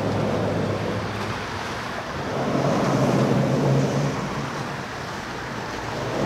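Outboard engines of center-console boats running through the inlet, a steady low drone that steps up in pitch and grows louder about two and a half seconds in and again near the end, with water wash and wind on the microphone.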